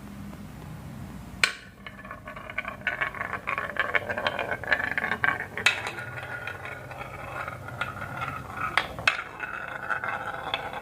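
Glass marbles rolling and clattering down a marble run track. A sharp clack comes about a second and a half in, then a steady rolling rumble with many small clicks and a few more sharp knocks.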